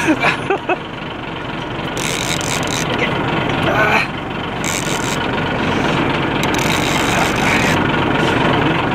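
Boat engine idling steadily under the noise of wind and water, with a heavy Penn Fathom II two-speed fishing reel being cranked against a big shark: a rasping rub from the reel around two to four seconds in and again near the end, and a few short sharp sounds in the first second.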